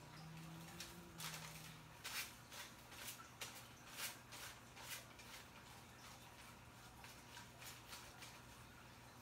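Near silence with a run of soft short rustles, most between about one and five seconds in, from a tint brush and foil being worked on the hair, over a faint steady low hum.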